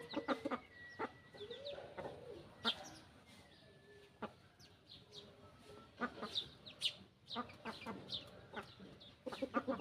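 Chickens clucking, with short high chirps and scattered sharp clicks.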